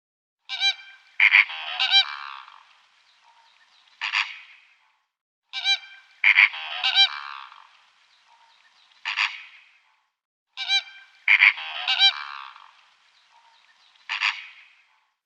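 Goose honking: a short burst of several honks, then one more, the same group repeating three times about five seconds apart.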